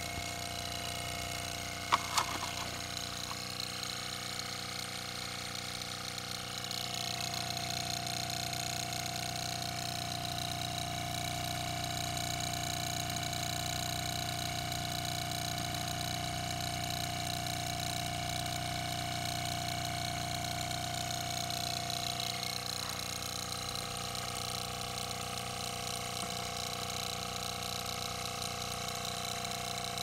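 Homemade Adams-type linear motor driving the glass piston of a DIY Stirling heat pump, running with a steady mechanical hum made of several held tones. A couple of sharp clicks come about two seconds in.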